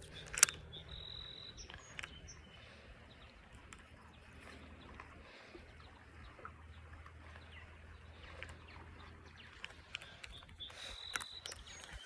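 Quiet outdoor ambience with a low steady rumble, a sharp click about half a second in, and two short high whistled bird notes, one near the start and one near the end.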